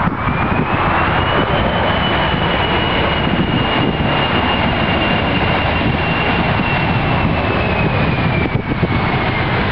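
Boeing 737-300's CFM56 jet engines running over a heavy rushing noise, with a high whine that rises over the first second and a half, holds steady, and falls away near the end.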